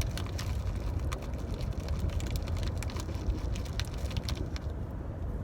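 Steady low road and engine rumble inside a moving car, with a run of light crinkling and rustling clicks from a candy wrapper being handled that stops near the end.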